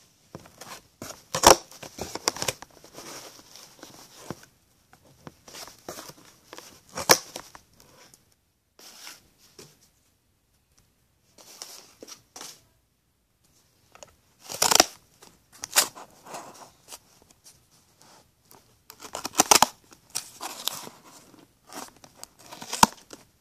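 Scissors cutting through cardboard: irregular runs of snips with a few brief pauses, and several sharper snaps standing out.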